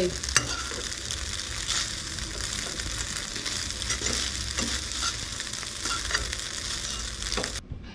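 Spaghetti and sausage pieces sizzling in a frying pan as they are lifted and tossed with a fork, with a few sharp clicks of the fork against the pan. The sizzling cuts off suddenly near the end.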